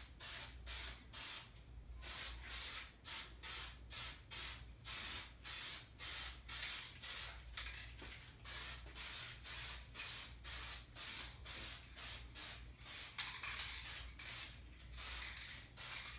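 Aerosol can of black spray paint hissing in short, quick bursts, about two or three a second, laying down a light dust of guide coat over sanded primer.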